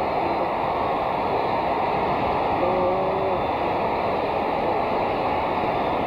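Large stadium crowd cheering steadily as a runner takes an extra base, with one voice briefly calling out above the roar about three seconds in.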